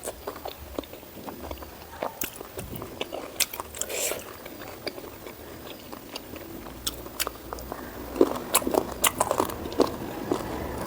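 Close-miked chewing and wet mouth smacking of a person eating pork fat with white rice: scattered clicks and smacks that come thicker and louder about eight seconds in.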